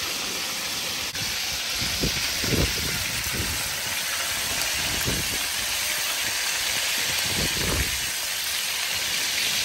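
Chicken wings deep-frying in hot oil in a large metal pot: a steady sizzle, with a few low bumps as the wings are turned.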